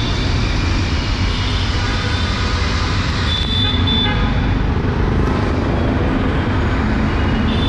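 Steady city street traffic on a wet road: cars and auto-rickshaws running past with tyre hiss. A brief high-pitched tone sounds about three and a half seconds in.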